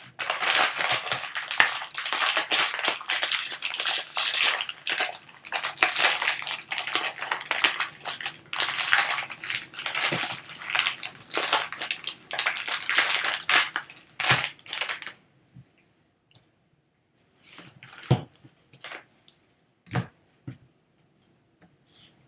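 Foil wrapper of a jumbo pack of baseball cards crinkling and tearing as it is pulled open by hand, loud and continuous for about fifteen seconds. After that come a few soft taps and rustles as the stack of cards is handled.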